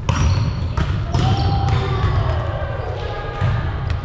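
Volleyball being played in a large gym: several sharp hits of hands and forearms on the ball, ringing off the hall's walls, over a steady low rumble.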